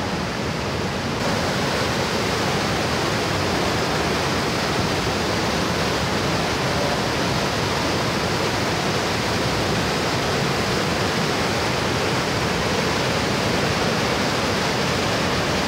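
Muddy, rain-swollen river in spate: a steady, loud rush of fast-flowing floodwater. The sound brightens slightly about a second in.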